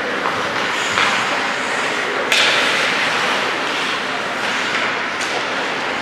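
Ice hockey play on the rink: skate blades scraping and cutting on the ice with stick and puck clatter. About two seconds in a sudden louder scrape that fades over a second, and a sharp click about five seconds in.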